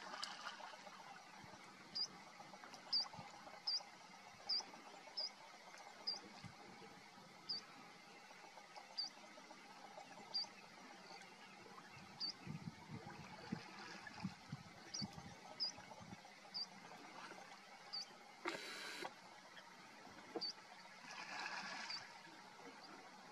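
A bird chirping one short, high note over and over, roughly once a second, faint against a soft outdoor hiss, with a brief rush of noise about three quarters of the way through.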